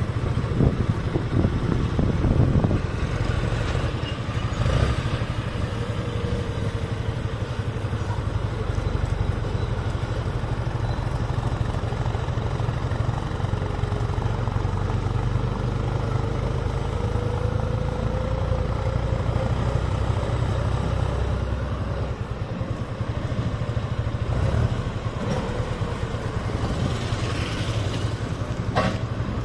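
Motor vehicle engines running at a steady road speed, a low rumble with a faint engine note that wavers slowly, mixed with road noise. A couple of brief clicks sound near the end.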